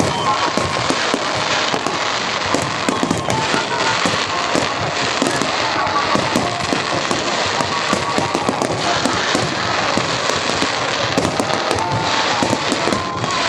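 Fireworks crackling: a dense, continuous rattle of many small bursts overlapping, with no pause.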